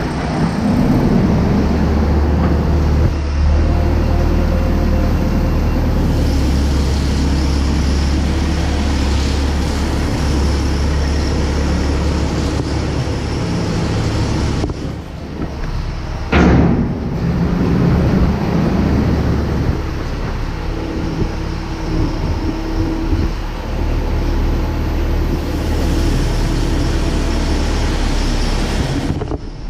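CLAAS Lexion combine harvester running steadily at work, a deep engine hum under a constant mechanical rush, with a brief louder rush just past halfway.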